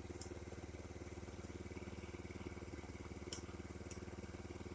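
A 50cc Chinese scooter's small engine idling steadily, with two short sharp clicks about half a second apart near the end.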